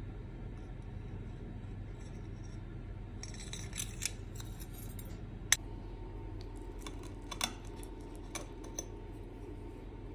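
Metal fork cutting through a slice of peach custard pie with a shortcrust base, with crisp scraping about three seconds in and several sharp clicks of the fork against the ceramic plate, one much louder than the rest, over a steady low hum.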